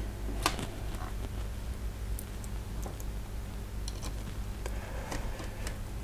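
Small scattered clicks and taps of a thin metal tool and fingers working the CPU fan cable and connector inside an open laptop, over a steady low hum.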